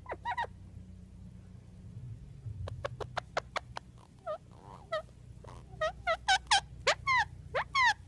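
A yellow parrot making short, quick, downward-sliding chirps. A few come at the start, then after a pause of about two seconds they return and grow faster and louder, several a second, toward the end, over a faint low hum.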